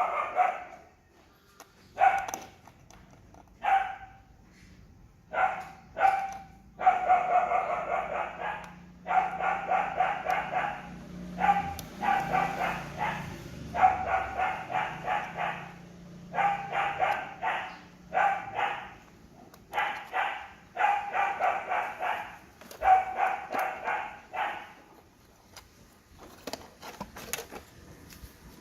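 A dog barking over and over, single barks at first, then quick runs of barks.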